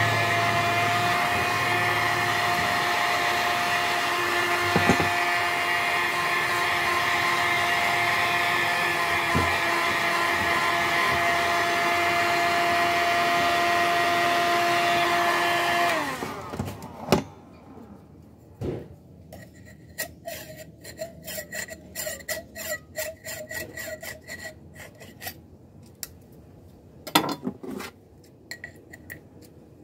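Handheld electric heat gun blowing steadily with a fan whine, shrinking PET bottle plastic onto a glass. About 16 seconds in it is switched off and its fan winds down, leaving a few scattered knocks and clicks.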